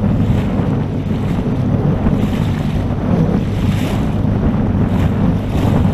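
Wind buffeting the microphone over water rushing and splashing along the hull of a small boat moving through choppy swells, with repeated splashes.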